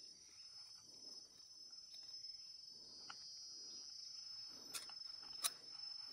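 Faint, steady, high-pitched insect drone, with soft rustling and a few sharp clicks from a fish being unhooked in a mesh landing net. The loudest click comes about five and a half seconds in.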